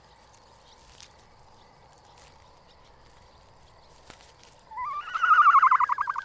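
A single loud whinny-like animal call near the end, rising briefly and then falling with a rapid quaver, about a second and a half long. A few faint clicks come before it.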